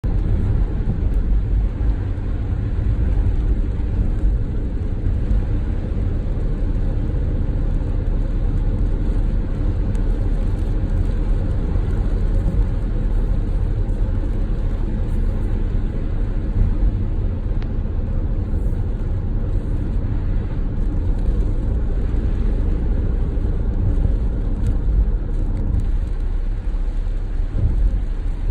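Car driving along a road: a steady, low rumble of road and engine noise.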